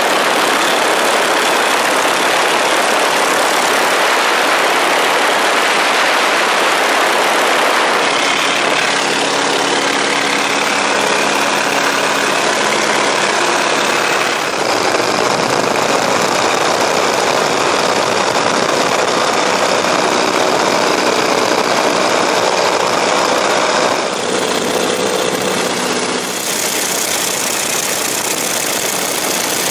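Light-aircraft piston engines running under heavy wind and propeller noise, in several short clips that change abruptly every few seconds.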